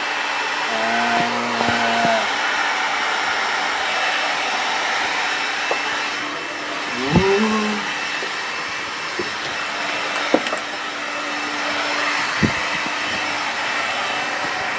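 Hand-held hair dryer blowing steadily, holding a ping pong ball up in its air stream. A couple of brief pitched sounds and a few short knocks come through over the noise, the loudest about seven seconds in.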